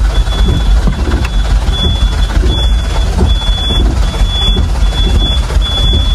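A truck's engine running with heavy low rumble and jolting road noise heard inside the cab. Over it, a high electronic warning beeper sounds in a steady repeating pattern, a little over once a second.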